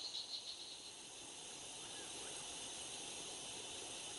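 Crickets chirping in a high pulsing trill that fades out about a second in, leaving a steady faint hiss of night-time outdoor background.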